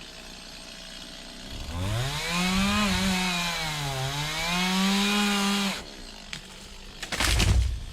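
Two-stroke chainsaw revved up to full throttle and cutting into a dead chestnut trunk. Its note sags about halfway as the chain bogs in the wood, picks back up, then drops off about six seconds in. A brief loud rushing thump comes near the end.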